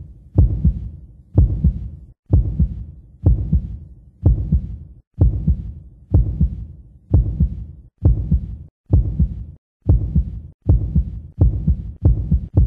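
A soundtrack pulse of deep bass hits, like a heartbeat, just under a second apart. The hits come faster over the last few seconds.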